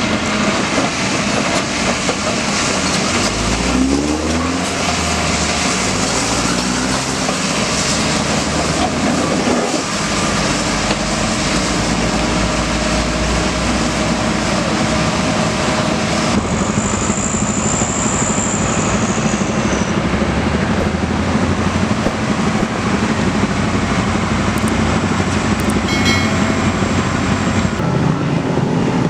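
Komatsu PC200 excavator running at work, its diesel engine and hydraulics making a loud steady noise, with the engine rising in pitch about three seconds in.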